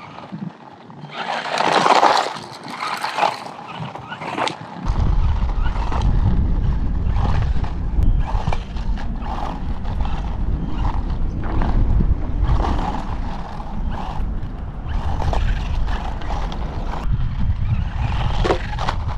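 Toy-grade JMRC Bison RC monster truck driving over a loose gravel lot, its tyres crunching and rattling over the stones, loudest about two seconds in. From about five seconds in a steady low rumble runs under the crunching.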